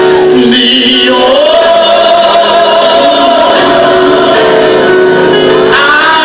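Gospel song with held, sustained vocal notes over instrumental backing.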